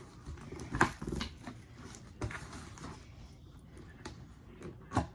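Cardboard box being pulled and torn open by hand, with scratchy rustling and a few sharp knocks.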